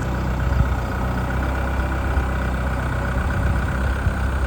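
An engine idling steadily, a low even hum with a faint steady whine above it.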